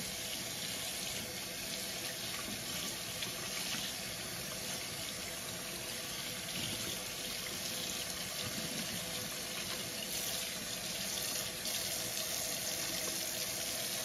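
Kitchen tap water running steadily into a stainless steel sink, splashing over a large paintbrush being rinsed and squeezed out under the stream.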